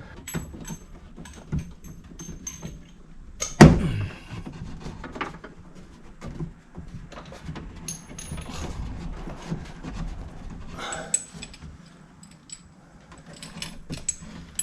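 Plastic clip being pried at inside a car door with a plastic trim tool: scattered clicks and rattles of plastic and metal, with one loud sharp knock about three and a half seconds in.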